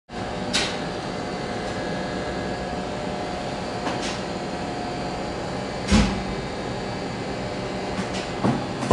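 Steady hum of a ship compartment's ventilation and machinery, with a few scattered knocks and clicks; the loudest is a dull thump about six seconds in.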